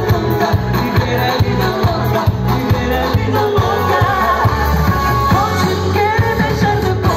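Amplified live band playing, with singing over a steady drum beat.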